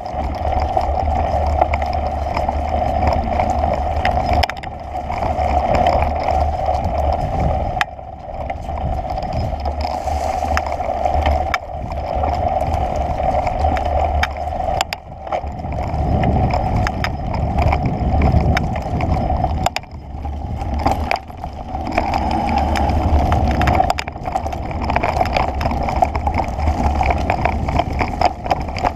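Wind rumbling on the microphone of a camera moving fast along a bumpy dirt trail, with a steady mid-pitched drone and scattered knocks and rattles from the jolting mount.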